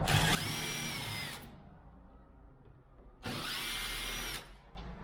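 Power drill-driver running in two bursts of about a second each, each winding up and back down, as it drives out the lock's screws, top and bottom.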